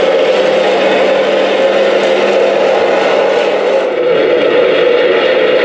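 Radio-controlled Sherman tank model driving: a loud, steady mechanical whir from its drive unit as it moves, changing tone slightly about four seconds in.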